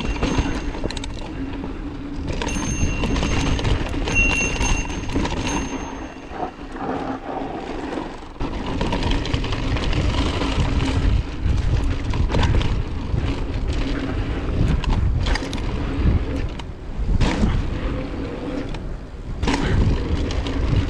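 Mountain bike riding fast down a dirt trail: wind rumbling on the microphone, tyres crunching over loose dirt and stones, and the bike's chain and frame rattling and knocking over bumps.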